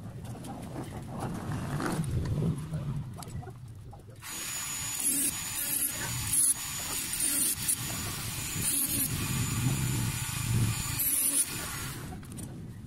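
Handheld rotary tool with a small abrasive disc starts about four seconds in and runs at high speed with a steady high whine. It grinds against the car door's inner sheet-metal panel in repeated short passes, then stops about a second before the end.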